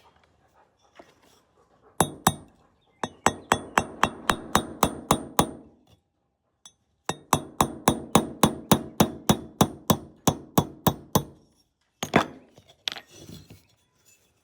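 A hammer tapping a pin punch in quick runs of ringing metal strikes, about four a second, to drive out the pin that holds the firing pin in a vintage .410 single-shot shotgun's action. Lighter clinking handling of metal parts follows near the end.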